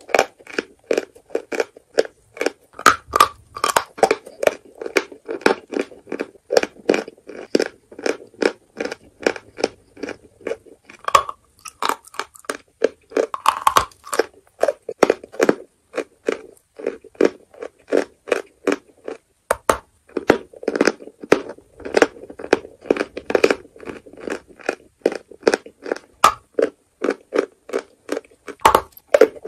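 Lumps of natural chalk being bitten and chewed, giving a steady run of crisp crunches at about two to three a second, with a couple of brief pauses.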